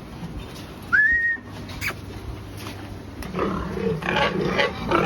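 Pigs grunting and squealing. About a second in there is one short high note that rises and then holds, and from about three seconds in the pigs grow louder and busier.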